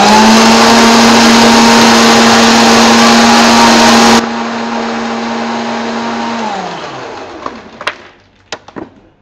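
Electric mixer-grinder blending plum pulp, milk and ice cubes: the motor runs at a steady pitch, very loud for the first four seconds, then quieter. At about six and a half seconds it is switched off and winds down with a falling pitch, followed by a few knocks near the end.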